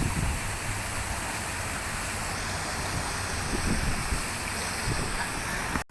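Wind rushing over the microphone: a steady hiss with uneven low rumbling buffets.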